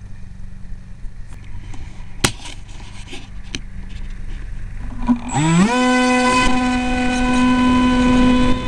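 RAY 2835/16 brushless electric motor of an EasyStar RC plane, with its propeller, spooling up quickly about five seconds in and then running at full throttle as a steady pitched whine. Before that there is only handling and wind noise, with a sharp click about two seconds in.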